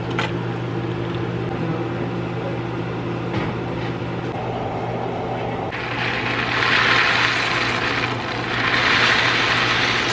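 A steady low hum with a couple of scrapes of a spatula in a metal pan of baked beans. About six seconds in, dry elbow macaroni is poured from its box into a pot of boiling water: a hissing rattle that swells and fades in three waves.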